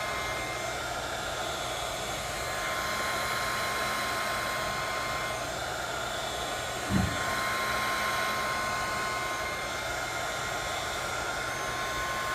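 Hot-air heat tool blowing steadily with a faint whine, warming the phone to soften and activate the screen adhesive. A brief low thump about seven seconds in.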